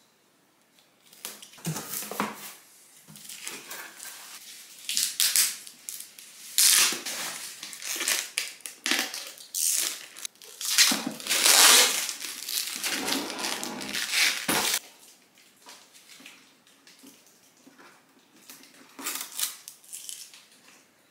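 Plastic packaging crinkling and rustling as protective wrap and film are pulled off a cutting machine, loudest around the middle. From about 15 s in it drops to faint, scattered tiny pops: the peeled plastic film slowly unwrapping again, a "mini popcorn sound".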